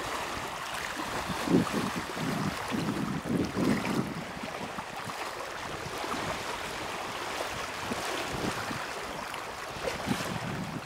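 Wind buffeting the microphone over choppy lake water, with small waves lapping and splashing irregularly, most strongly in the first few seconds.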